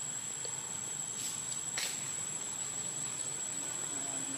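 Outdoor ambience with a steady high-pitched insect drone, broken by a couple of brief rustles about a second and two seconds in.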